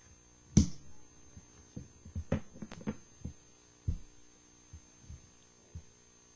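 Steady electrical hum with about ten soft, short thumps and clicks scattered through it, the strongest a little after the start and about four seconds in.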